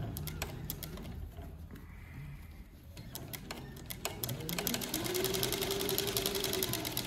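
Juki MS-3580 feed-off-the-arm three-needle double-chainstitch industrial sewing machine starting up about two-thirds of the way in and stitching denim: a rapid needle clatter over a motor whine that climbs in pitch near the end. Before it starts there are only a few light clicks.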